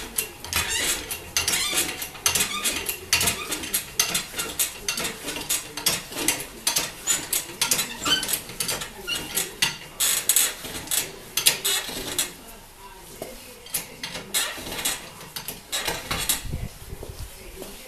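Metal tools and parts clicking and clattering in quick, uneven strokes, dense for about twelve seconds and then sparser.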